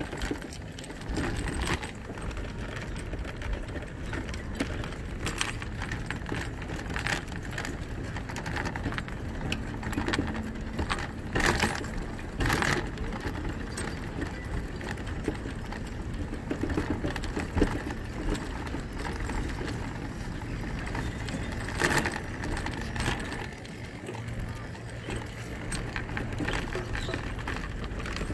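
A scooter rolling along a wooden pier deck: a steady low rumble with scattered rattles and clicks.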